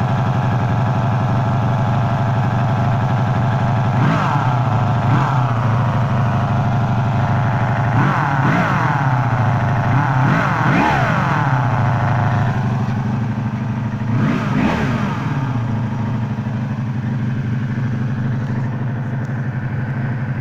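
1984 Honda Magna V30's V4 engine idling with a buzzing noise from the clutch/crankcase area, revved up and let fall back several times. The owner says the rest of the motor sounds smooth, and does not know what the buzz is.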